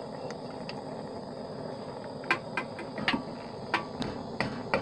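Steady hissing running noise of a small melting furnace heating copper, with a scatter of sharp metallic clicks and taps from about two seconds in as the crucible and mold are handled.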